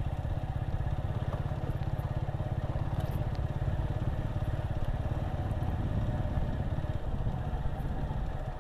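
Motorcycle engine running steadily at low speed, a rapid even low pulsing with no change in pace.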